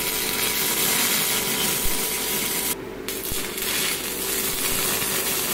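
Stick welder arc sizzling steadily as a 7018 rod lays a weld bead on a spliced CV axle shaft. The arc goes out briefly about three seconds in, is struck again, and stops near the end.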